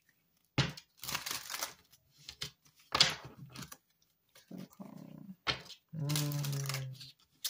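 A deck of cards being shuffled by hand, in several short papery rushes of cards sliding over one another. Near the end there is a low, steady hum lasting about a second.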